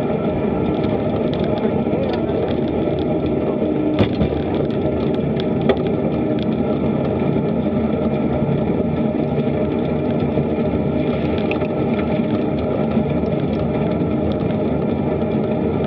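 Steady wind buffeting on a bicycle-mounted action camera's microphone, mixed with tyre and road noise from riding. Two sharp knocks, like bumps through the bike, come about four seconds in and again a little before six seconds.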